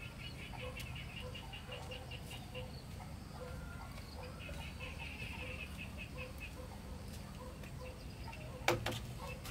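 Birds chirping in quick repeated runs, and near the end a single sharp clatter as a corrugated iron roofing sheet is set down against a stack of sheets.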